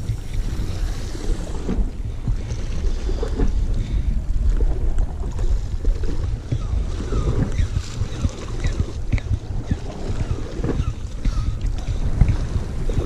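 Wind buffeting the camera microphone in a low, gusty rumble, with the sea washing against the rocks below.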